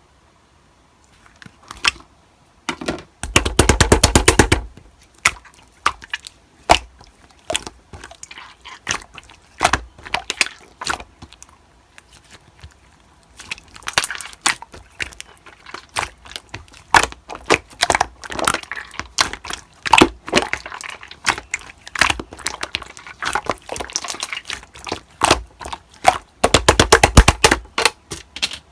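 Slime being played with by hand, crackling and popping: irregular sharp clicks throughout, with two dense runs of rapid popping, a few seconds in and again near the end.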